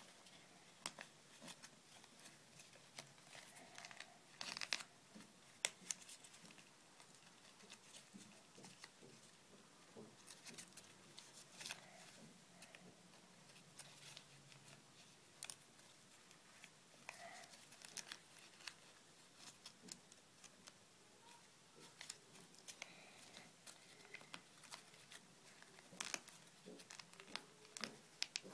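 Origami paper being folded and creased by hand: faint, irregular crinkling with crisp little clicks as the folds are pressed, a few sharper ones standing out.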